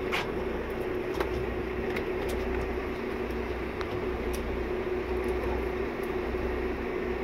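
Fishing boat's engine running steadily at low speed: a constant hum over a low rumble.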